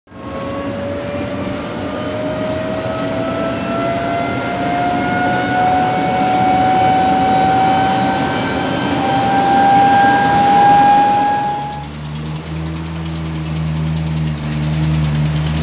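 Rolls-Royce Derwent centrifugal-flow turbojet spooling up: a rushing roar with a whine that climbs steadily in pitch for about twelve seconds. It then cuts off abruptly, and a steady low engine hum takes over.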